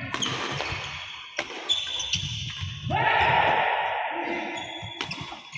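Badminton rally: rackets striking a shuttlecock, several sharp cracks ringing in an echoing hall. About halfway through, a loud drawn-out sound lasting about a second and a half is the loudest thing.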